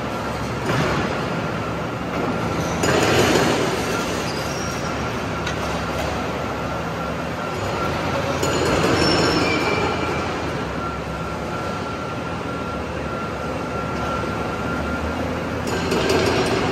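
Tracked excavator at work: heavy diesel engine running steadily under metallic scraping and squealing, with louder surges about three seconds in, around nine seconds, and near the end.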